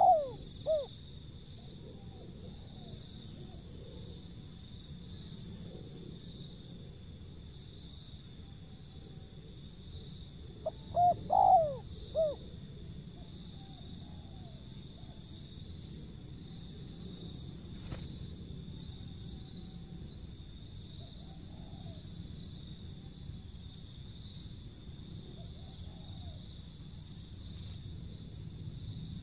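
Spotted dove cooing: a phrase of three or four coos about eleven seconds in, and the end of another phrase at the very start. Fainter bird calls come and go behind it over a steady high-pitched drone.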